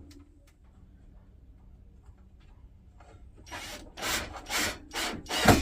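A run of rasping strokes against wood, about two a second, starting a little past halfway in after a few seconds of quiet.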